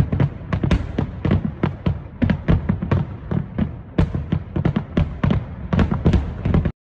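Fireworks going off in a rapid barrage of bangs and crackles, several a second over a low rumble, cutting off suddenly near the end.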